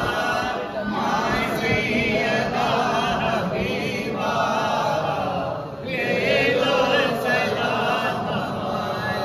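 A group of men singing a devotional salam in unison without instruments, led by one voice on a microphone. Their lines run on continuously, with a short breath between lines about six seconds in.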